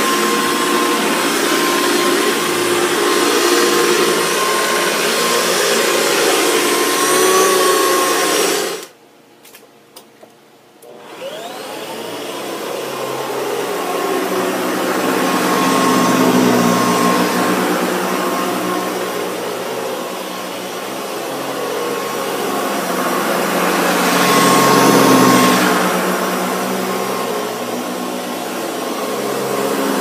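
Hoover Decade 80 upright vacuum cleaner running on carpet with a steady motor whine. About nine seconds in, the sound stops abruptly, leaving a couple of seconds of near quiet with a few clicks. The motor then starts up again with a rising whine and runs on, growing louder and softer as the vacuum is pushed back and forth.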